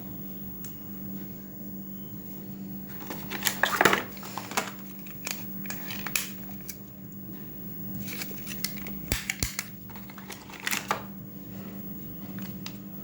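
Smartphone packaging being handled: plastic and cardboard crinkling with scattered clicks and taps, loudest about four seconds in, over a steady low hum.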